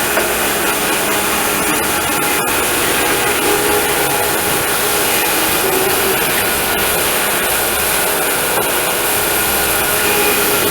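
Homemade sawmill running steadily while milling beetle-kill pine logs: a loud, even motor-and-blade noise with no breaks.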